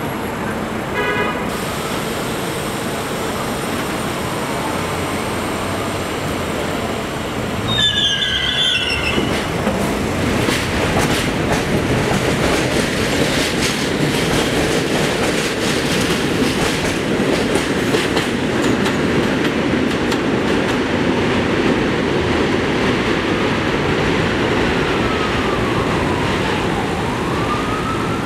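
R32 subway train pulling out of an elevated station. A brief high-pitched squeal sounds as it starts moving, about eight seconds in, then the noise builds into a steady rumble and rhythmic clatter of wheels over the rail joints as the cars pass. A siren wails faintly near the end.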